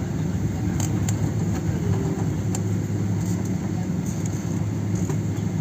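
Steady low rumble of an airliner cabin before takeoff, with a few faint clicks.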